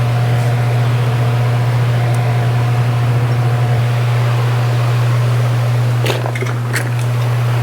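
Steady low mechanical hum, like a fan or other machinery running in the shop, with a few light clicks of parts being handled about six to seven seconds in.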